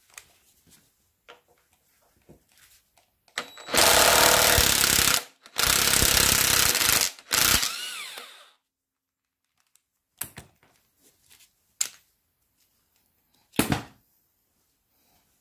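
A Parkside impact wrench hammers on a rusted bolt of the Mini subframe's radius-arm bracket in two rattling bursts of about a second and a half each, then its motor whines down. After that come a few short knocks.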